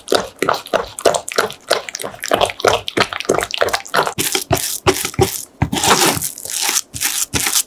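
Spatula pressing and scraping sweet potato batter through a stainless-steel mesh sieve: repeated wet scraping strokes, a few a second.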